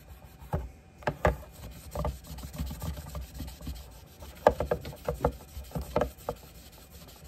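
Wad of Nevr-Dull cotton wadding polish rubbed back and forth over the brass of a lockback folding knife, a scratchy rubbing broken by scattered light knocks.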